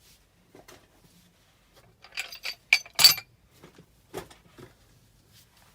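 Metal tools and parts clinking and clicking in short, irregular knocks during work on a furnace's gas valve, with the loudest clinks about two to three seconds in.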